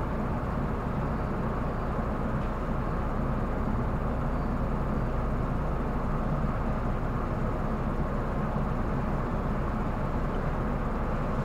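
Tobu Railway electric commuter train running, heard from inside the passenger car: an even, steady rumble of wheels on rails and running gear.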